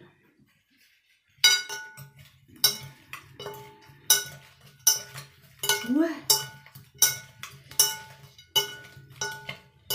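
Metal spoon and fork tossing salad in a glass bowl, clinking against the glass about twice a second, each strike leaving the bowl ringing briefly. The clinking starts about a second and a half in.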